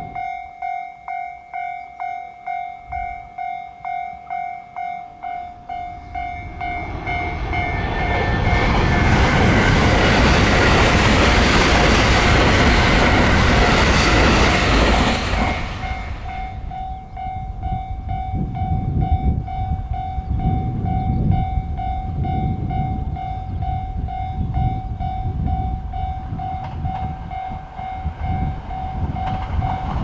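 Japanese level-crossing alarm bell ringing at about two strikes a second while electric trains run past. The loudest moment is a train rushing by from about a quarter to halfway through. After that the bell keeps ringing over the low rumble of a second, slower train.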